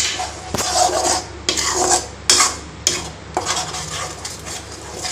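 A metal spatula scraping and stirring a thick masala paste frying in oil in a steel kadhai. The strokes are irregular, about two a second, as the paste is turned and scraped off the pan's sides.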